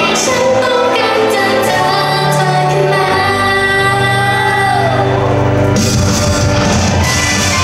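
Pop song performed live on stage, with vocals singing over the music. About six seconds in, the arrangement turns fuller and brighter.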